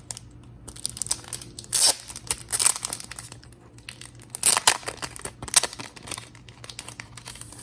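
The wrapping of a packet of photo cards being torn open and crinkled by hand, in several short rustling bursts.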